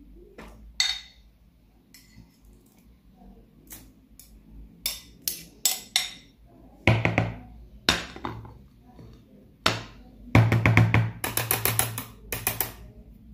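A metal spoon clinking and scraping diced red pepper off a dish into a plastic mixing bowl: scattered sharp clicks and a few dull knocks. Near the end comes a run of quick whisk strokes against the bowl.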